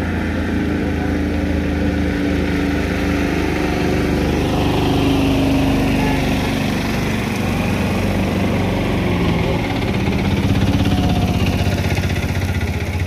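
Engines of vehicles crawling through deep mud close by: an SUV and small three-wheeled auto-rickshaw engines running, their pitch rising and falling as they are throttled.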